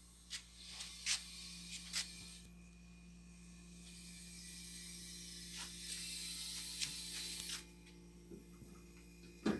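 Refrigerant gas hissing into a small refrigerator's sealed system while it is being charged: a few sharp metallic clicks of fittings being handled, then a high hiss for about five seconds that cuts off suddenly, over a steady low hum.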